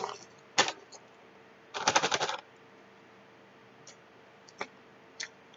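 Potato chips crunching between the teeth: one sharp crack about half a second in, then a quick run of crackling chews around two seconds in, and a few faint ticks near the end.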